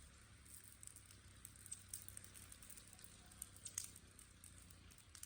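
Faint, sparse crackling of a small burn-pile fire, with a few slightly louder snaps, over near silence.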